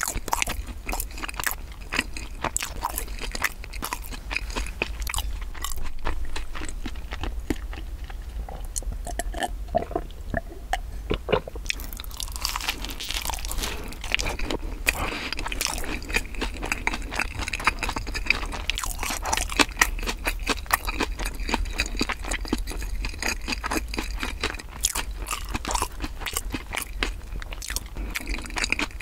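Close-miked chewing and crunching of bread, with irregular crisp crunches from biting into a dark-crusted bread roll, busier from about halfway through.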